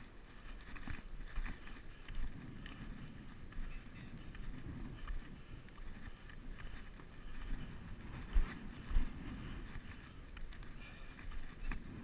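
Wind noise on a GoPro's microphone, with footsteps scuffing over rock and dry grass as the wearer climbs. Two heavy thumps come about eight and a half and nine seconds in.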